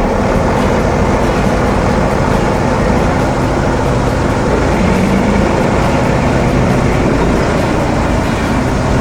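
Heavy vehicle engine running steadily at a constant load, a dense continuous rumble with a low hum.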